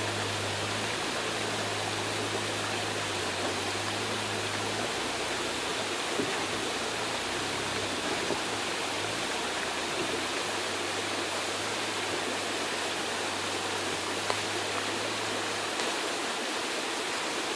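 Steady rushing of a creek. The low hum of an off-road vehicle's engine runs underneath for about the first five seconds and again from about ten to sixteen seconds in.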